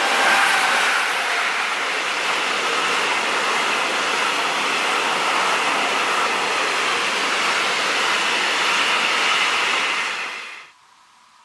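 Freight train of silo hopper wagons behind an electric locomotive passing close by: a steady wheel-on-rail rolling noise that cuts off suddenly near the end.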